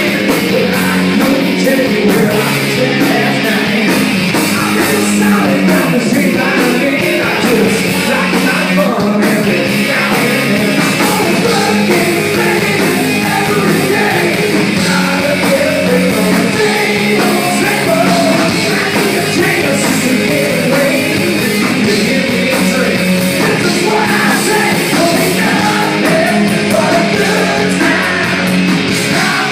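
Live rock band playing loud: electric guitar and drums with a singer's voice over them, continuous throughout.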